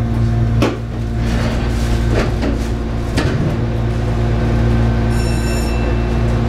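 Shizuoka Railway 1000-series electric train standing at a station platform: a steady low hum from its onboard equipment, with a few sharp knocks in the first three seconds or so.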